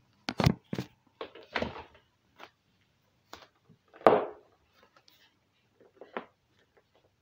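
Toe joints cracking as the toes are curled under and pressed down: a series of short pops and clicks at uneven intervals, the loudest about four seconds in.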